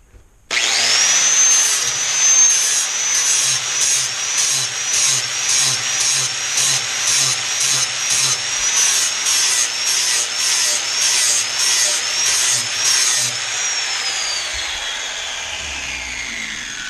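Angle grinder with a 40-grit flap wheel starting up and whining up to speed, then grinding the edge of a steel lawn tractor mower blade in even passes about twice a second. Near the end the grinding stops and the whine falls away as the switched-off wheel spins down.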